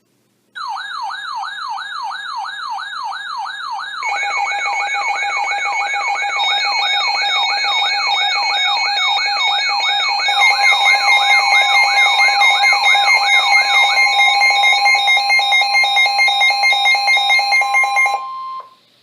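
Layered electronic alarm tones: a siren-like tone warbles up and down about three times a second. About four seconds in, steady and rapidly pulsing beep tones join it, and about ten seconds in a steady tone near 1 kHz is added. The tones grow louder and all cut off together near the end.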